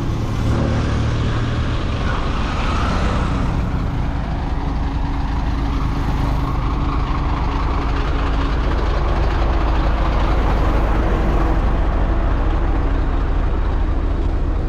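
Concrete mixer truck's diesel engine running steadily with a low rumble.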